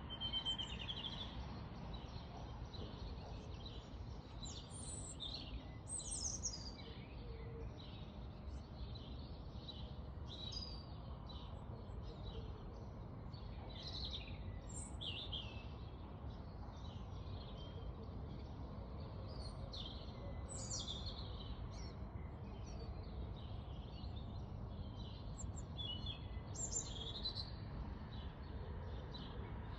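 Songbirds singing and chirping in a dense run of short, high phrases and trills, over a steady low background rumble.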